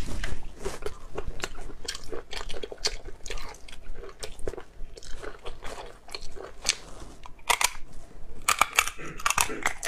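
Close-up eating of spicy cooked snails: wet chewing and crunching with small clicks of the mouth, and a run of louder smacking and sucking sounds near the end as a snail is held to the lips.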